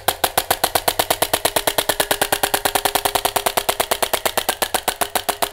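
Tokyo Marui Glock 17 Gen.4 gas blowback airsoft pistol firing empty, its slide cycling in a rapid, even string of sharp cracks about ten a second.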